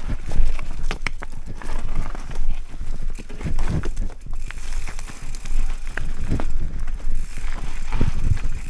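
Giant Trance full-suspension mountain bike rattling down a rough trail, with irregular knocks and clatter over a steady low rumble.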